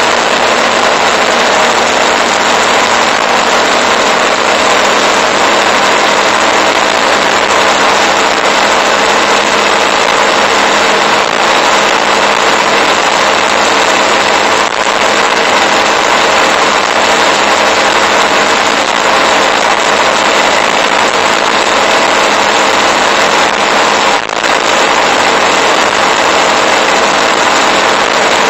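Motorcycle riding at a steady cruising speed: a steady rush of wind and road noise on the bike-mounted camera's microphone, with the engine's drone underneath.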